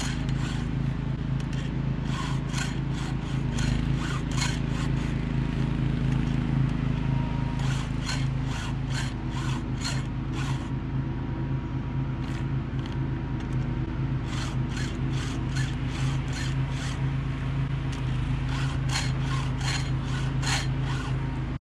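Stihl 2-in-1 file guide filing the cutters of a 3/8 Pico low-profile chainsaw chain: quick scraping strokes of the round and flat files, a few a second, with a lull of a few seconds midway. A steady low hum runs underneath.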